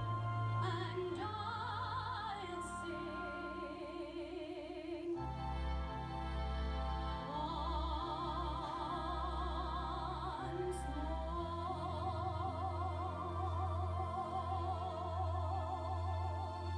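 A voice singing in a classical, operatic style with wide vibrato, holding long notes over instrumental accompaniment.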